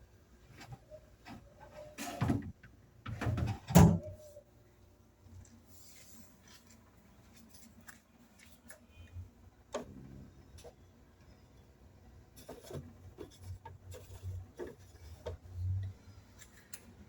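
Refrigerator shelves and drawers being handled: scattered knocks and scrapes, with the loudest cluster about two to four seconds in and lighter knocks later on.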